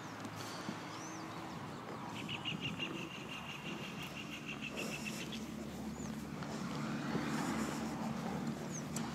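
Outdoor ambience with birds calling: short high chirps and a rapid, even trill lasting about three seconds, over a steady low hum.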